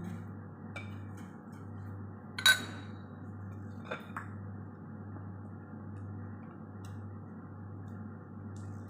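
A utensil clinks sharply against the batter bowl about two and a half seconds in, with a lighter tap a second and a half later, over a steady low hum.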